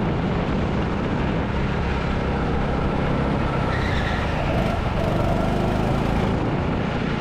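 Go-kart engine running at speed with tyre noise as the kart laps the track, heard from on board the kart. The sound stays steady throughout.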